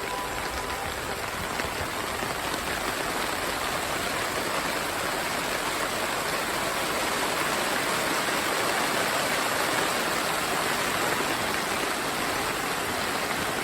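Steady rain falling in a storm, an even hiss of drops.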